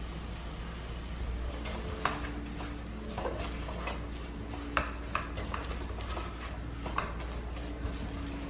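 Kitchen utensils knocking and scraping against cookware: a scattered series of light, irregular clinks.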